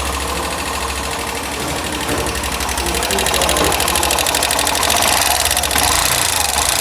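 Hero Glamour BS6 motorcycle's single-cylinder engine running with a fast, even beat that gets a little louder about two seconds in.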